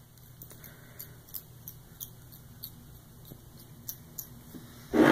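Thread being wrapped from a fly-tying bobbin over Arctic fox hair on the hook, giving small sharp ticks every few tenths of a second, with one louder short noise near the end.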